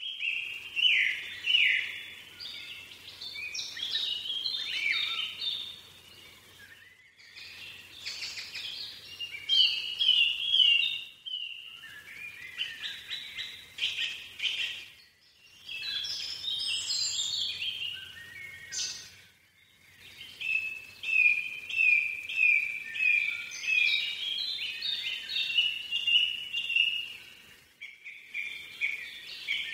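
Small songbirds chirping and singing: many short, quick notes and trills, with a run of evenly repeated notes near the end and a few short breaks in between.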